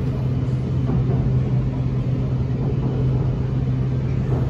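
Running noise inside a Bangkok BTS Skytrain car between stations: a steady rumble with a constant low hum.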